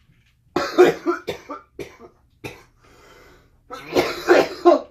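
A man coughing repeatedly, in a fit about half a second in, a couple of single coughs midway and another fit near the end, his throat burning from the ghost pepper chips he is eating.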